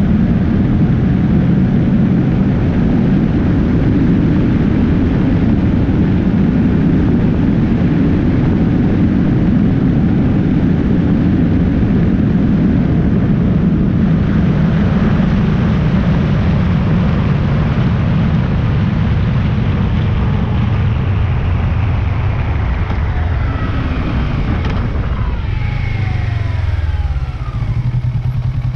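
Motorcycle riding at highway speed, its engine running under heavy wind and road noise on the low-mounted camera. Over the last few seconds the engine note drops in several falling sweeps as the bike slows down, then settles into a steady idle near the end.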